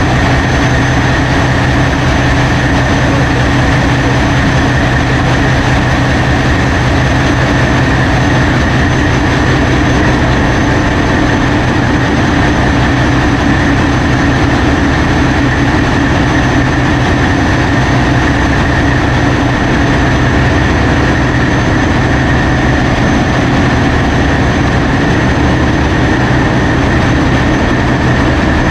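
Large marine diesel engines running steadily in a ferry's engine room: a loud, unchanging drone with a deep hum and a thin high whine over it.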